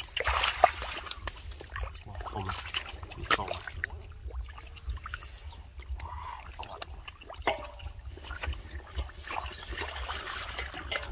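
Hands splashing and sloshing through shallow muddy water while groping for fish, with irregular small splashes and drips.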